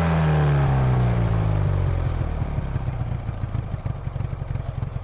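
A humming tone with several pitches slides down and fades over the first two seconds, then a low, fluttering rumble of wind buffeting the microphone while riding a bicycle over snow.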